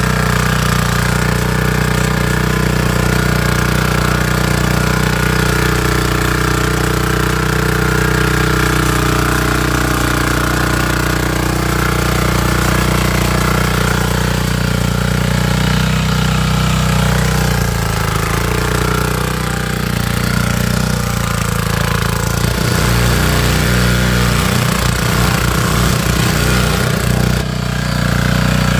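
Micojet diesel power tiller engine running steadily under load as its rotary tines churn wet soil, with a knocking diesel beat. The engine note wavers for a few seconds near the end.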